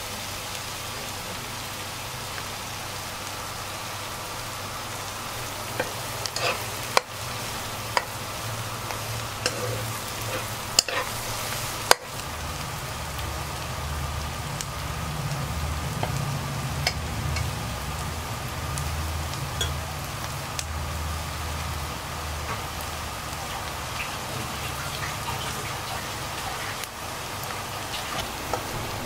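Sliced shallots sizzling in hot oil in a wok, with a few sharp knocks and scrapes of a ladle against the pan in the first half. A low hum comes in partway through.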